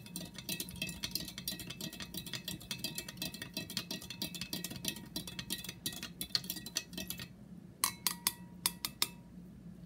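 A spoon stirring powdered drink mix into water in a cup, clinking quickly against the sides for about seven seconds, then a few separate ringing clinks near the end. A low steady hum runs underneath.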